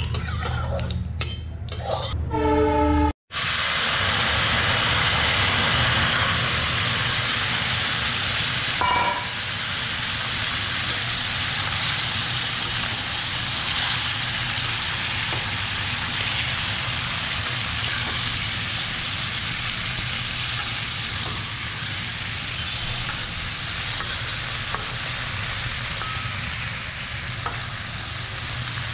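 Fish and potato pieces frying in hot oil in an iron kadai, a steady sizzling hiss, stirred now and then with a spatula. The first few seconds hold some clicks and scraping and a short tone, then the sizzle comes in after a cut.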